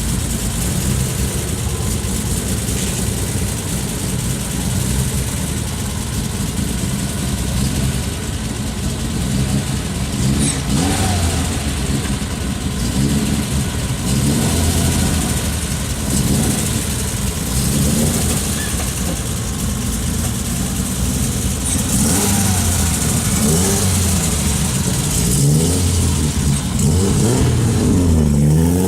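Car engines idling and revving as cars pull away one after another, their engine notes rising and falling with throttle and gear changes, with a hard rev that climbs steeply near the end.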